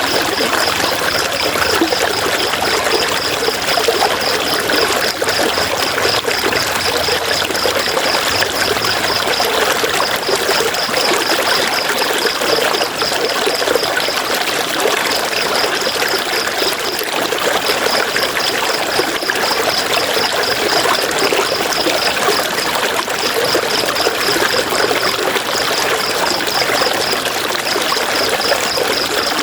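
River water running and splashing over rocks, a steady rushing flow. Over it comes a rapid, high-pitched pulsing trill in long runs with short breaks.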